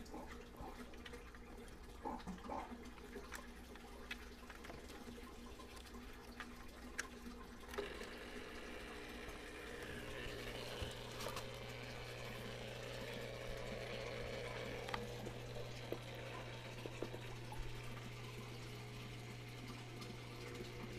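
Aquarium water pump switched on, humming steadily from about halfway through, with water splashing and trickling as it flows into the tank's overhead filter trays. A few faint knocks from handling the equipment come in the first few seconds.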